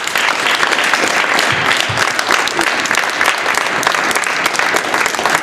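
Crowd of spectators and players applauding in a sports hall: a dense run of many hand claps that holds steady throughout and begins to thin out at the end.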